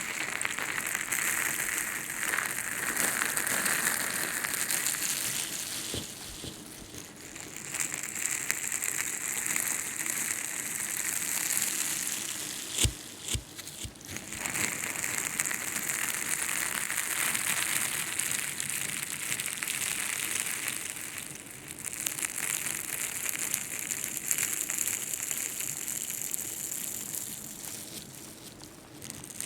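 Ear-picking ASMR sounds: an ear pick scraping and rustling close against the microphone. It goes in long passes of several seconds with short pauses between them, and a couple of sharp taps about halfway through.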